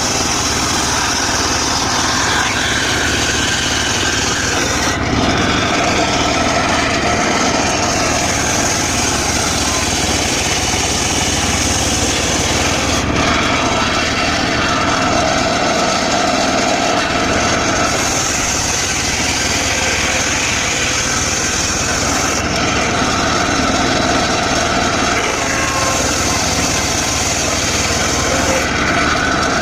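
A circular saw cutting dry teak wood, its engine running without a break. The high part of the cutting sound drops away and returns every few seconds as the cuts go on.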